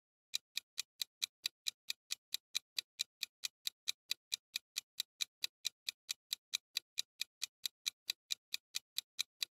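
Clock-ticking sound effect for a countdown timer: even, quick ticks, about four to five a second, starting about a third of a second in. It marks the seconds running out to answer.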